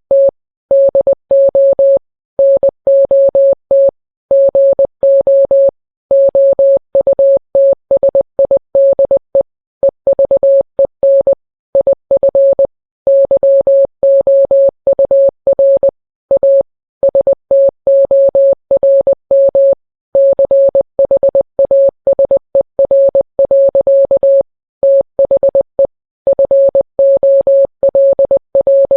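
Morse code sent as a single steady beep tone, keyed on and off in short dots and longer dashes with brief gaps between letters and words. It spells out a text message, here a mock emergency alert.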